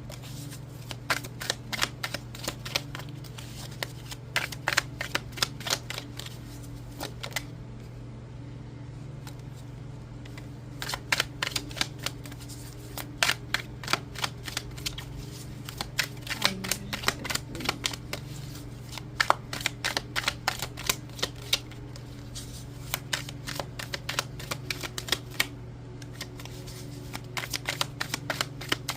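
A tarot deck being shuffled by hand: runs of quick card clicks and slaps, broken by a couple of short pauses, over a steady low hum.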